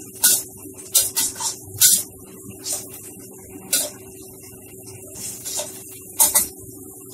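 Metal spatula scraping and knocking against a steel wok while stir-frying, in short irregular strokes, clustered in the first two seconds and again near the end. A steady low hum runs underneath.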